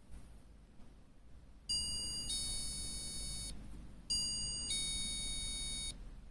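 Motion-sensor door chime (JX-371D) sounding its electronic two-tone ding-dong twice, about two and a half seconds apart. Each time a short higher note is followed by a longer lower one, steady and cut off abruptly.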